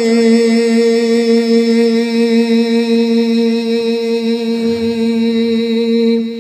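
A man singing an unaccompanied naat, holding one long note with a slight waver, drawn out at the end of a sung line and tailing off near the end.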